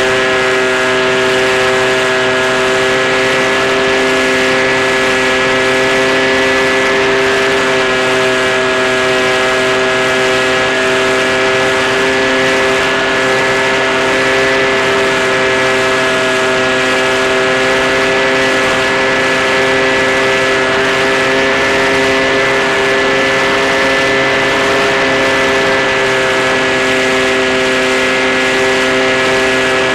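Electric motor and propeller of an RC motor glider running at a steady speed, heard from on board as a constant pitched hum with wind hiss.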